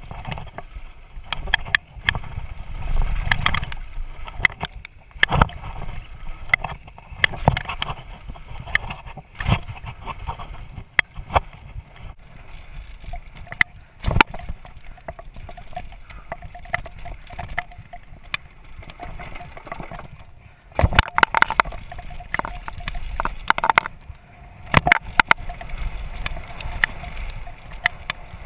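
Downhill mountain bike descending a rough dirt trail at speed: tyres rolling over dirt and rocks, wind rushing over the microphone, and frequent sharp knocks and clatter as the bike hits bumps.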